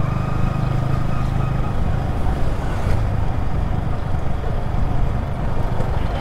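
Sport motorcycle's engine running as the bike rolls slowly along, a steady low rumble that loses its held hum about a second and a half in.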